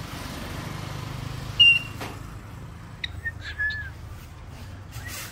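Cockatiel whistling: one short, sharp high whistle about a second and a half in, then a few quick chirps and a drawn-out whistled note that dips at its end around three seconds in. A low steady hum runs underneath.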